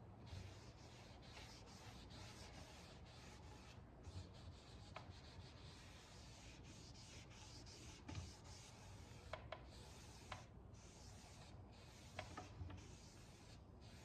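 Faint rubbing of a cloth wiping wood stain over the dresser's wood in repeated strokes, with a few light clicks.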